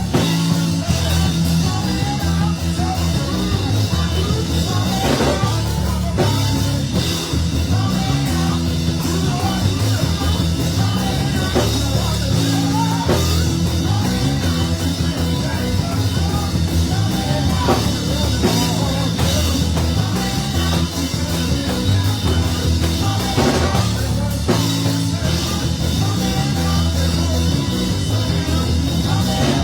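Band music with a steady bass line that moves from note to note, loud throughout.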